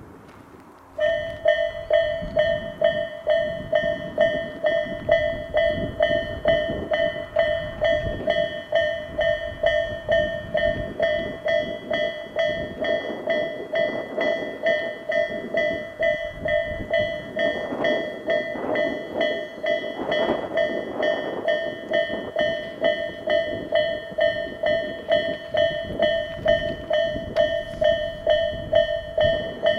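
Japanese level-crossing warning bell starts about a second in and keeps ringing in a steady, evenly spaced repeat of about one and a half strikes a second. A train runs past through the middle of the ringing.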